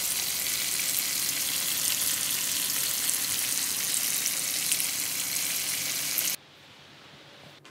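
Whole mackerel frying in shallow oil in a pan: a steady dense sizzle and crackle of spitting oil, which cuts off suddenly about six seconds in.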